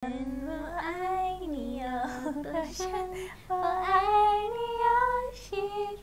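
A woman's voice singing a short melody, with long held notes that slide from one pitch to the next.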